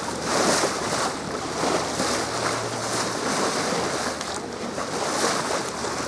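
Water washing along the hull of a sailboat under sail, with wind buffeting the microphone, swelling and easing about once a second.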